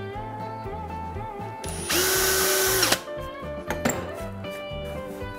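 Cordless drill with a 1/16-inch bit running in one short burst of about a second, its pitch rising as it spins up and dropping as it stops, drilling a pilot hole into wood for a hinge screw. A sharp click follows, over steady background music.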